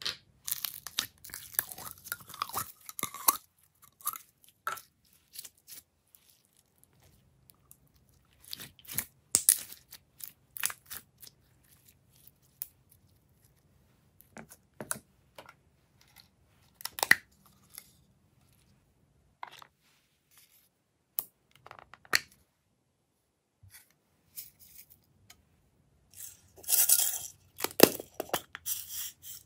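Glossy slime handled by hand, poured from a cup, pressed in a plastic tray and pushed out of a silicone mold. It makes scattered sticky clicks and crackles in irregular bursts, with the loudest, densest run near the end as the mold is squeezed.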